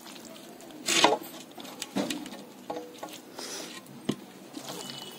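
Wet squelching and soft pattering of masala-coated raw mutton, onion and tomato being scooped by hand off a steel plate and dropped into a clay handi, with small clicks and knocks of pieces against the pot and plate. A brief louder burst about a second in.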